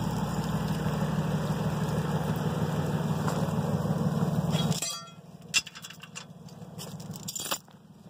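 A vehicle engine running steadily close by on a snowy road. About five seconds in it drops away suddenly, leaving a few faint clicks and crunches.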